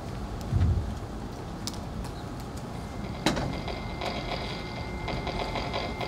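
Electrode recording of a songbird's brain neurons played back as sound through a loudspeaker: action potentials heard as a crackle of clicks, which grows into a dense, even clicking from about three seconds in. A low thump comes a little over half a second in.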